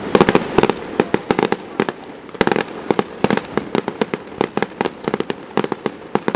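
Aerial firework display: a dense, irregular string of sharp bangs from shells being fired and bursting, several a second.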